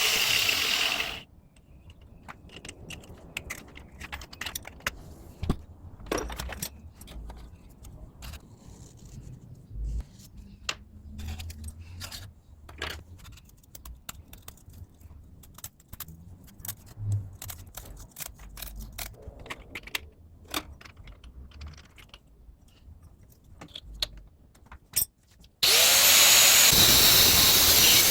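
An angle grinder runs briefly and stops. About 24 seconds of scattered clicks, taps and knocks follow as small parts are handled. Near the end the grinder starts up and runs loudly, its pitch sweeping as it comes up to speed.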